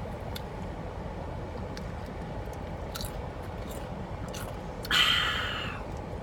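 Chips being chewed, small crunching clicks over a steady low background hum, with one brief louder noisy burst about five seconds in.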